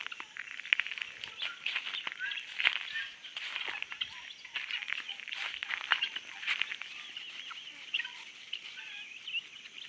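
A flock of farm poultry calling, a busy chatter of many short, sharp calls overlapping without a break.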